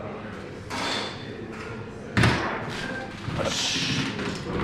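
A soft-tip dart hitting an electronic dartboard with a sharp thud about two seconds in. A short hiss follows about a second later.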